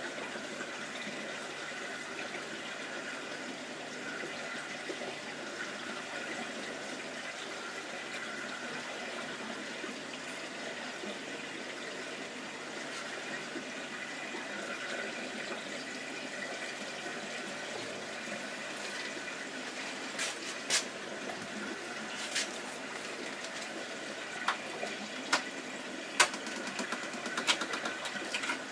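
Steady bubbling and trickling of aquarium aeration: air bubbles rising through the water of a goldfish tank from an air-lift filter. In the last several seconds a handful of sharp clicks or taps sound over it.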